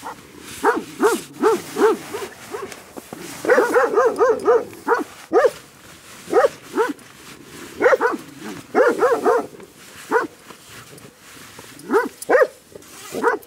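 A dog barking over and over in runs of quick barks, with pauses of a second or two between the runs.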